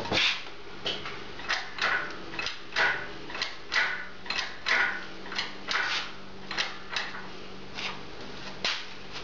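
Hydraulic engine hoist being pumped by hand, raising an engine and transmission together. Each stroke gives a short squeak or clank, in pairs about one stroke a second.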